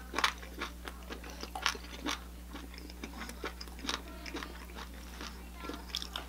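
A person chewing and biting food, with irregular small crunches and clicks, over a steady low hum.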